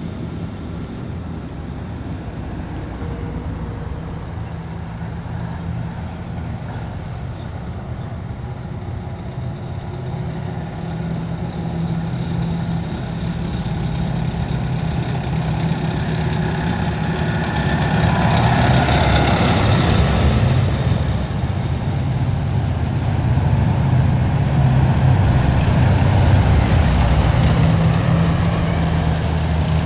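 Heavy military vehicles driving past in a column, their engines running with a steady low drone. The sound builds through the middle as a vehicle passes close, stays loud, and a thin high whine joins near the end.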